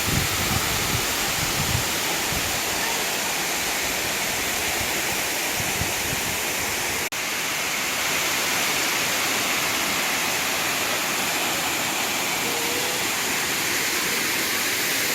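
Silver Waterfall's roughly 100-metre drop pouring, a steady rush of falling water, with a brief dropout about halfway through.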